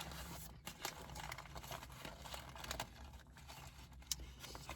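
Someone chewing a bite of fried chicken sandwich, with soft irregular crunching and crinkling sounds.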